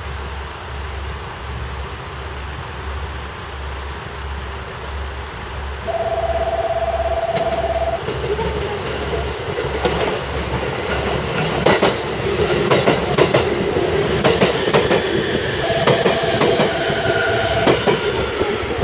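JR Kyushu 811-series electric train approaching and running past, its wheels clattering sharply over rail joints and points, with a motor whine that falls in pitch. A two-second buzzing tone sounds twice, once before the train arrives and once as it passes.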